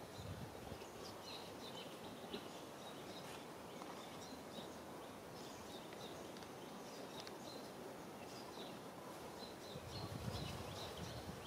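Outdoor ambience: steady faint background noise with scattered short, high chirps throughout, and a low rumble about ten seconds in.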